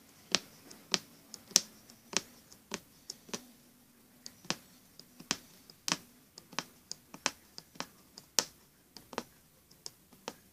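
Magic needle (punch needle) stabbing again and again through fabric stretched taut in a wooden embroidery hoop: sharp, uneven pops, about two to three a second.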